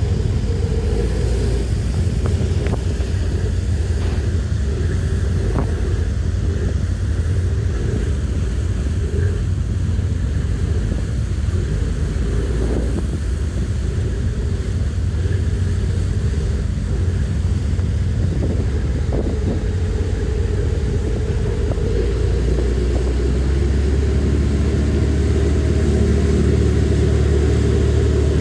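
Steady low rumble of a moving vehicle, growing louder about three quarters of the way through.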